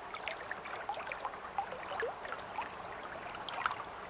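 Water running in a shallow stony creek, an even rush with many small gurgles.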